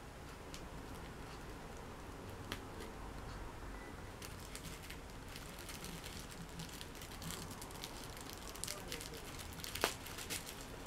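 Tissue paper crinkling and crackling in the hands as tape is picked at and peeled off a tissue-wrapped package, with scattered small clicks that grow busier partway through and one sharper snap near the end.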